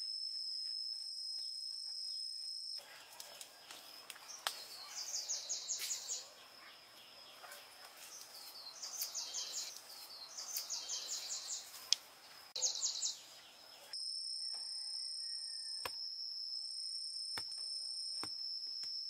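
Forest insects: a steady high-pitched drone, broken from about three seconds in to about fourteen seconds by a noisier stretch with several short trains of rapid high chirps. A few sharp knocks stand out, the loudest about twelve seconds in.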